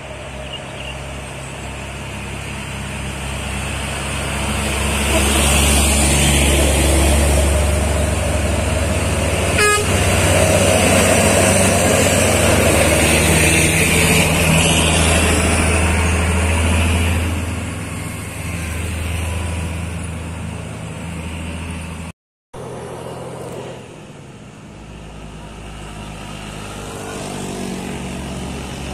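Heavy diesel cargo trucks driving past under load, the deep engine drone building to a loud peak as they go by and then fading. After a break, another truck approaches, getting louder near the end.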